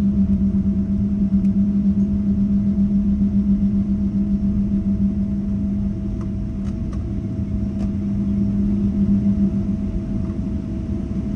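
Steady mechanical drone inside a moving vehicle: a strong low hum with a rumble beneath, pulsing slightly in loudness. A few faint clicks come about six to eight seconds in.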